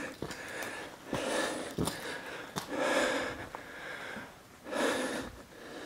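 A man breathing heavily close to the microphone: three loud breaths, about two seconds apart, winded after a climb. A few faint clicks come between the breaths.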